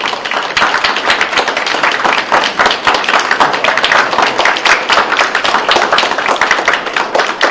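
A group of people applauding, a dense, continuous patter of hand claps.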